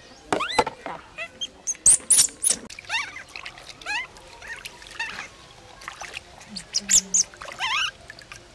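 Infant macaque giving repeated short, rising squeals while being bathed, mixed with water splashing and being poured over it; the splashing is loudest about two seconds in and again about seven seconds in.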